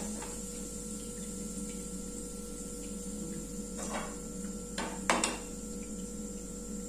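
Metal slotted spoon and tongs clinking a few times against the kadhai and plate as fried rice sandge are lifted out of the oil: three short clinks past the middle, over a steady hum.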